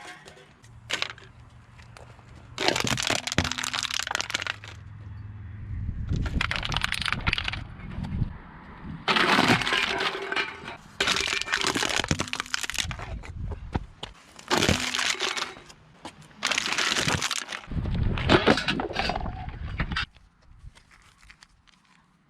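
Objects being crushed under a car tyre: about seven bursts of cracking and crunching, each one to two seconds long, with short pauses between.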